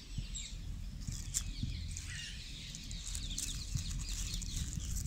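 Dry leaf litter rustling and crackling as a hand sifts through it, with scattered small clicks and low handling knocks.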